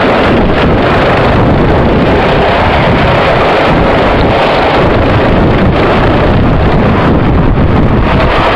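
Steady loud wind buffeting on the microphone of a moving go-kart, mixed with the kart's running noise as it laps the track.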